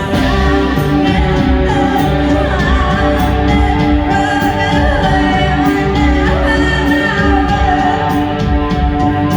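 A live band playing with a singer holding long, gently wavering notes over a heavy bass line and a steady cymbal beat.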